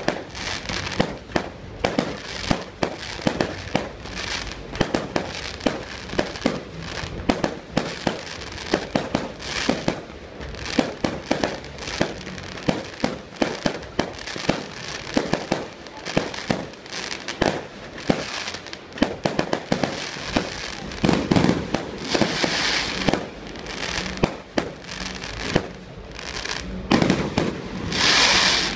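Fireworks display: a rapid run of bangs from bursting shells, with denser crackling hiss about two-thirds through and again near the end, as white glitter bursts and sparking fountains fire.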